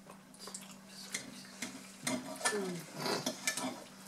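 Cutlery and serving utensils clicking and scraping against plates and serving dishes as food is dished out, with a short murmured voice in the second half.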